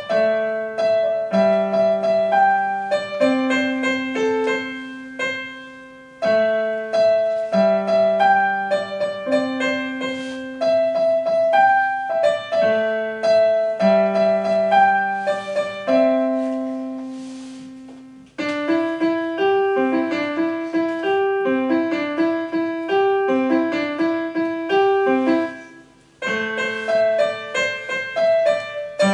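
Electronic keyboard played in a piano voice with both hands: chords and single notes that die away, over held low bass notes. The playing fades almost out twice, about 18 and 26 seconds in, and then picks up again.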